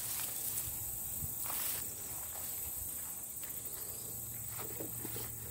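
A steady, high-pitched summer insect chorus, with faint rustling of garden plants and footsteps underneath.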